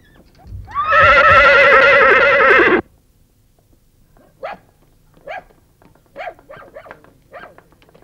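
Horse whinnying once, a loud, long, quavering call lasting about two seconds that falls slightly in pitch and stops abruptly.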